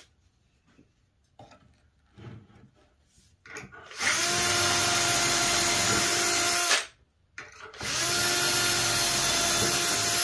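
Milwaukee M18 cordless drill boring handle holes with a 3/16-inch bit through a Kreg hardware jig into a white oak drawer front. It runs steadily twice, each run lasting about three seconds with a short stop between, after a few seconds of quiet handling.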